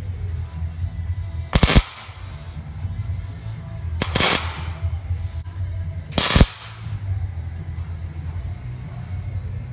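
Wire-feed (MIG) welder tack-welding a steel wire mesh panel: three short bursts of arc crackle, each about a third of a second long, roughly two seconds apart.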